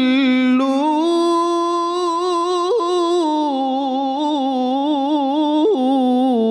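Male qori's melodic Quran recitation: one long unbroken sung phrase with fast ornamental wavering. It climbs in two steps in the first second, rises higher around three seconds in, and falls back to its starting pitch near the end.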